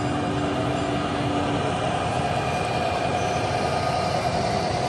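HO scale model of an Amtrak ALC42 locomotive running along layout track with its train: a steady train-like running noise with a steady high whine, and a lower tone for the first second and a half.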